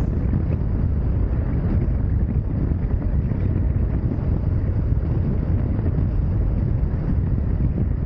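Steady, loud wind rumble buffeting the microphone of a moving motorcycle.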